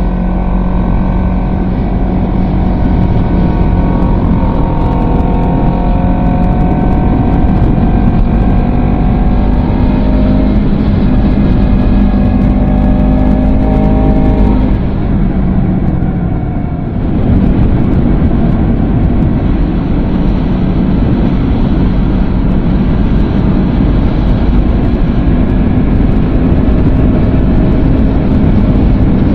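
Honda CBR250RR's parallel-twin engine and exhaust running at a fairly steady pitch. About halfway through there is a brief dip in level and a break, and then it runs on at the same steady note.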